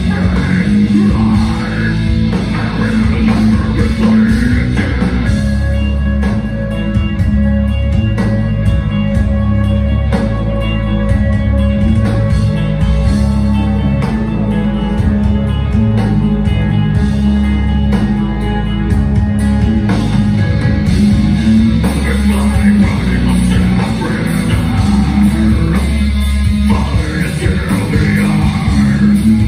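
A metal band playing live through the venue PA: distorted electric guitars, bass and drum kit, loud and dense throughout. A singer's vocals are heard over the first few seconds and again near the end, with a more instrumental stretch of held guitar notes in between.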